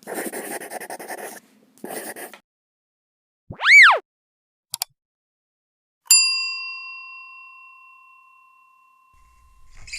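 A sequence of sound effects: two short whooshes, a loud swooping tone that rises and falls, a brief click, then a single bell-like ding that rings out and fades over about three seconds.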